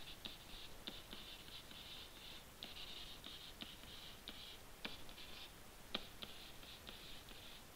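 Stylus writing on a tablet: faint, quick scratchy strokes with small sharp taps as the letters are drawn.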